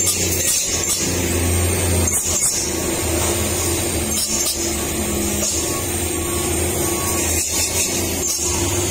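Heavy goods trucks' diesel engines running at low speed as they crawl round a steep hairpin bend: a steady low drone, with a constant high hiss over it.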